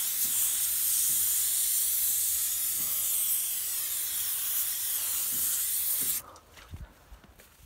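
Aerosol can of tire shine spraying onto a car tire in one long, steady hiss that cuts off suddenly about six seconds in.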